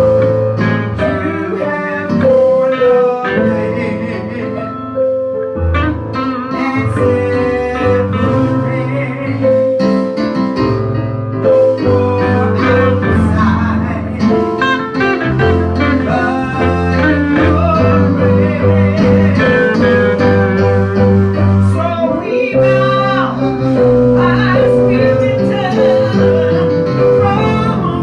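Live church band music led by guitar over a steady bass line, with held, wavering notes that may be guitar bends or wordless singing.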